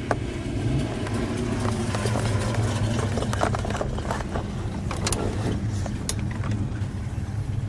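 A car engine running steadily at low speed, with a few sharp clicks and knocks on top.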